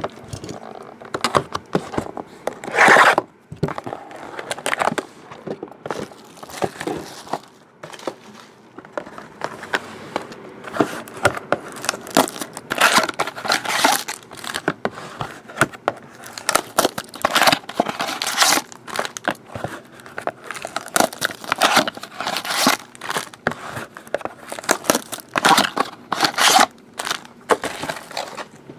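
Foil and plastic trading-card wrappers being torn open and crumpled by hand: a run of irregular crinkling and tearing.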